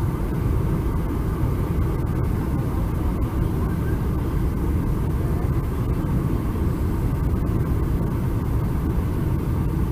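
Steady low-pitched cabin noise inside a Boeing 747-400 on landing approach: engines and air rushing over the wing with its flaps extended.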